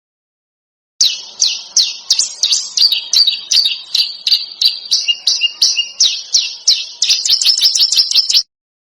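A songbird giving a fast series of short, sharp notes, each sweeping downward, starting about a second in and stopping shortly before the end. The notes come quickest at the start and end and a little slower in the middle.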